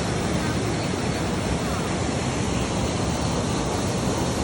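Steady roar of waterfall water pouring down, an even rushing noise with no breaks.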